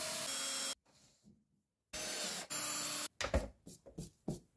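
DeWalt cordless drill running at low speed in two short spells, boring holes through HDPE plastic sheet. It is followed by a string of light knocks near the end.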